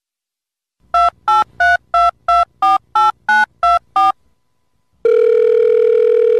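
Telephone keypad touch tones: ten quick two-note dialing beeps of changing pitch over about three seconds, then a steady ringing tone for about two seconds that cuts off, as a call rings through.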